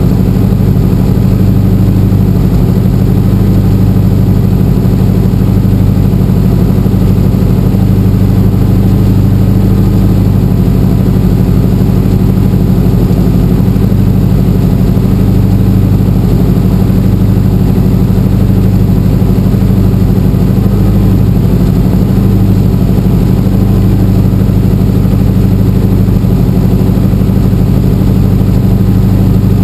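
Small helicopter's engine and rotor running steadily while it sits on the ground, heard from inside the cockpit as a loud, even drone with a strong low hum.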